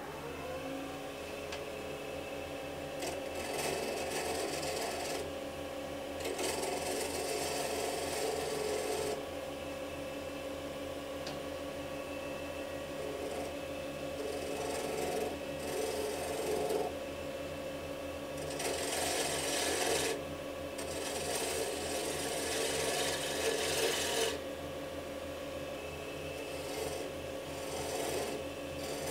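A wood lathe spins up to speed right at the start and then runs steadily. A hand-held turning tool cuts the spinning pen blank of banksia pod and dyed epoxy in several spells of scraping that come and go. The blank is being re-turned to shape after its gaps were refilled with fresh epoxy.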